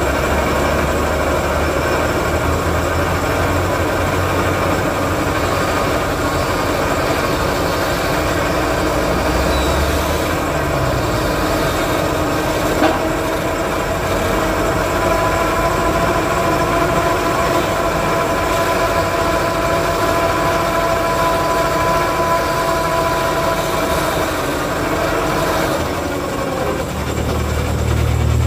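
A truck engine running steadily at a constant pitch, with a deep rumble underneath and one short click about 13 seconds in.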